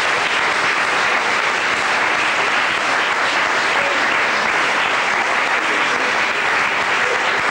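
Audience in a theatre hall applauding steadily.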